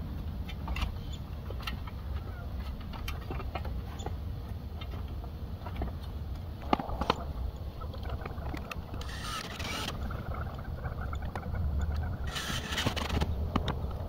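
Aluminium extension ladder clanking and knocking as someone climbs it and works at the house siding, over a steady low outdoor rumble. Two brief hissing noises come about nine and twelve seconds in.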